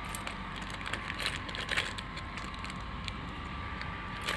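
Light clicks and rustles of small plastic sewing-machine accessories and their packets being handled, over a faint steady hum.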